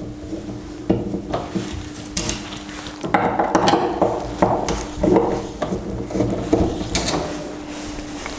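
A Pozidriv screwdriver backing screws out of a door handle's backplate: repeated metal clicks and scraping, busiest in the middle.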